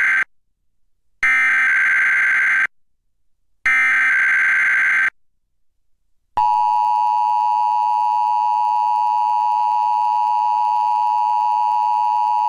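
Emergency Alert System SAME header: the end of one burst of shrill warbling digital data, then two more bursts about a second and a half long each, marking the start of an EAS Required Weekly Test. After a short gap, the steady two-tone EAS attention signal starts about six seconds in and holds.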